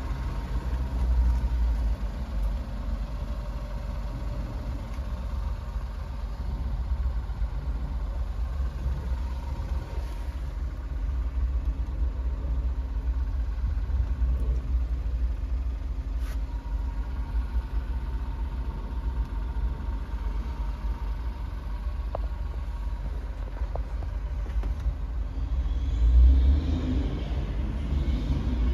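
Suzuki Carry kei truck's 660 cc K6A three-cylinder engine idling steadily, heard from inside the cab as a low, even rumble. Near the end there is a brief louder swell.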